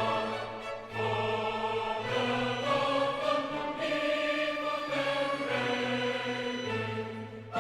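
Background music: a choir holding sustained chords over orchestral accompaniment, changing chord about every second.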